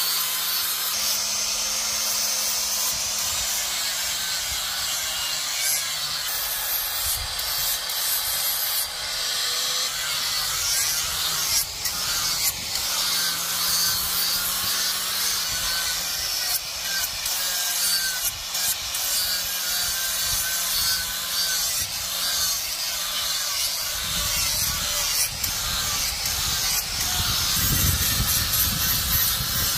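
Handheld electric angle grinder grinding along a long steel knife blade: a steady high grinding hiss over the motor's hum, the hum sagging in pitch now and then as the disc is pressed into the steel. In the last few seconds a heavier low rumble joins in.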